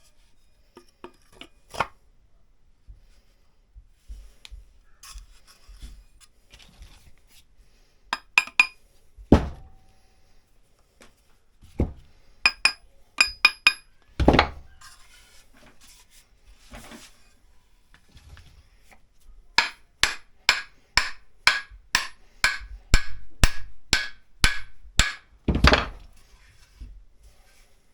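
Hammer blows on a steel axe head being driven onto a new hickory handle: scattered ringing metal taps and a few heavy thuds, then near the end a run of about a dozen ringing strikes, roughly two a second.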